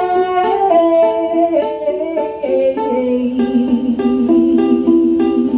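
Acoustic pop song with ukulele and a held sung line that steps down in pitch over the first couple of seconds, then plucked ukulele notes carry on in a steady rhythm.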